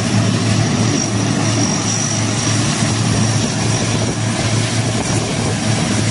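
A large vehicle's engine running steadily: a constant low hum under an even rushing noise.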